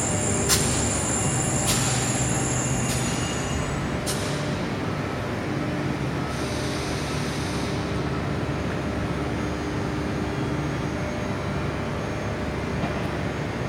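TER Alsace passenger train coming to a stop: a high brake squeal that fades out over the first few seconds, with a few sharp clanks, then a steady low hum from the stopped train.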